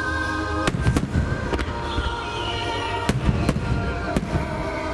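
Ten-inch (shakudama) aerial firework shells bursting, about six sharp bangs in two clusters, each with a low rolling echo, over steady background music.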